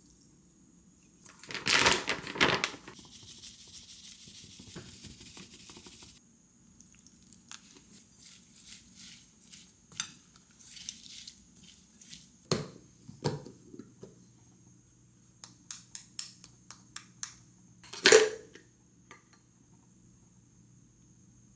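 Kitchen work sounds: a loud clatter of dishes and utensils, a few seconds of hiss, then a run of light clicks and taps with one louder knock near the end. A low steady hum comes in about halfway through.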